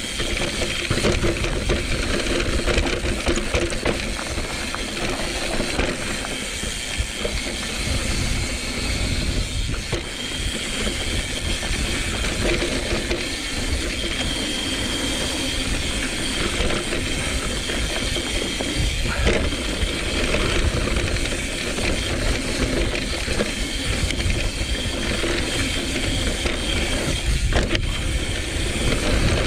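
Mountain bike riding fast down a dusty dirt singletrack: knobby tyres rolling over the dirt and the bike rattling over the bumps, with a steady rumble of wind on the handlebar-mounted microphone. A couple of sharper knocks come from bumps, one about two-thirds of the way in and one near the end.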